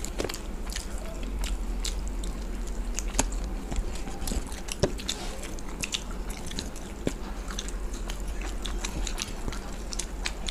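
Close-miked eating of fried chicken pakoda: irregular wet smacks, crunches and sharp clicks as two people bite, chew and tear the fried chicken with their fingers, over a low steady hum.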